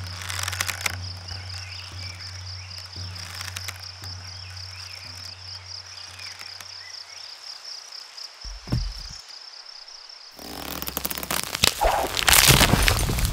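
A steady, pulsing insect chirr, cricket-like, over a low hum that stops about seven seconds in. About ten seconds in, a loud burst of crunching and rustling takes over as boots run across twigs and leaf litter on the forest floor.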